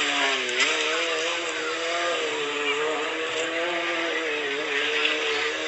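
Sport motorcycle engine held at high revs during a burnout, its pitch steady with a brief dip about half a second in and another near the end.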